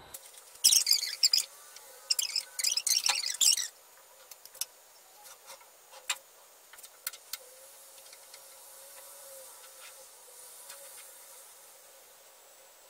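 Sped-up sound of hands braiding hair: two brief bursts of crackling rustle in the first few seconds, then scattered faint clicks over a low hiss.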